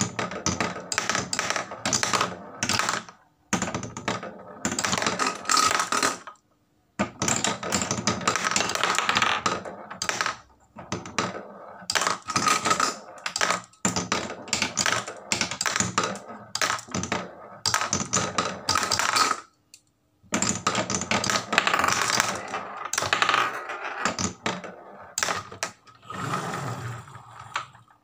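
Marbles clattering into a wooden tray, clicking against the wood and each other in fast runs of clicks that pause briefly several times.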